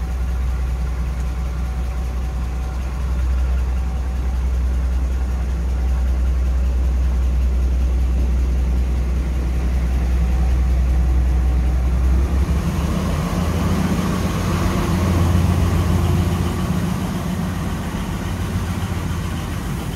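Class 42 Warship diesel-hydraulic locomotive idling with a deep, steady hum; about twelve seconds in its engines open up, the sound moving higher and growing a little louder as it starts to pull away.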